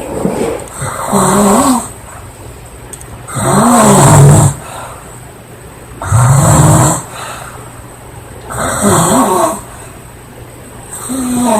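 A woman snoring loudly and rhythmically, a snore about every two and a half seconds: low rattling snores with some that rise and fall in pitch.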